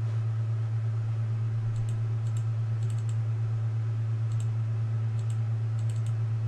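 Scattered light clicks of a computer mouse, single and in quick pairs, over a steady low electrical hum.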